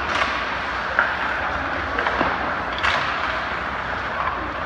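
Ice hockey play: steady rink noise with four sharp knocks of stick and puck, about a second apart.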